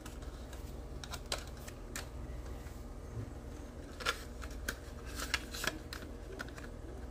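Scattered light clicks and taps of a plastic model-car kit's body and interior tub being handled and fitted together, with a few sharper clicks around four and five and a half seconds in.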